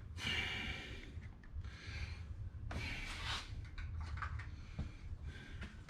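Rubbing and scraping sounds from hands and parts being handled, two longer ones about a third of a second in and around three seconds in, with smaller scuffs between, over a low steady hum.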